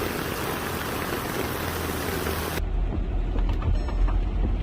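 Steady rushing water noise. About two and a half seconds in it cuts off abruptly and gives way to a low rumble with small knocks, like a vehicle moving through the flood.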